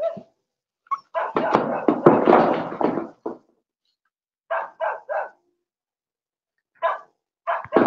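A dog barking repeatedly: a run of barks, then three quick barks in a row about halfway through and one more near the end.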